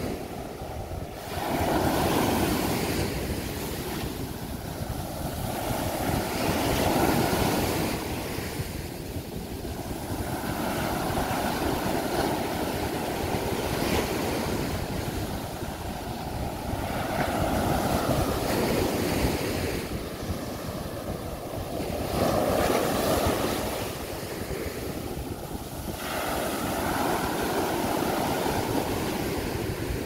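Rough sea surf breaking and washing up a sandy beach, each wave swelling and fading about every four to five seconds.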